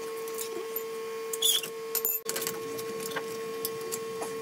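Scattered metal clicks and knocks of hand tools as the last nut on the lower mount of the car's front strut is worked free, the loudest knock about a second and a half in. A steady high-pitched hum runs underneath.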